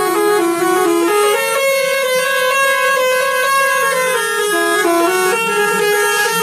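Indonesian 'telolet' musical bus horn playing a tune: several horn tones sound together, stepping quickly between notes at first, then holding one chord for a couple of seconds before stepping on through more notes.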